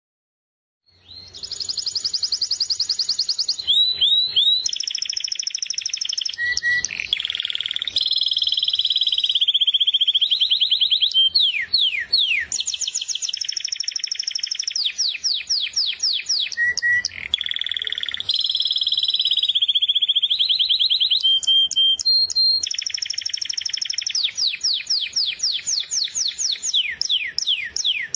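Bird song: fast, high-pitched trills and rapid chirp series that change phrase every few seconds, starting about a second in.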